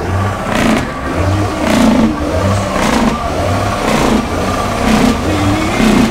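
Car engine revved over and over in short, regular blips, about one a second, with the pitch rising and falling each time.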